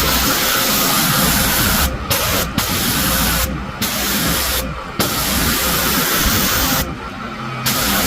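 Pressure washer spraying with a loud steady hiss. The spray cuts out briefly about five times, while the machine's low engine hum runs on underneath.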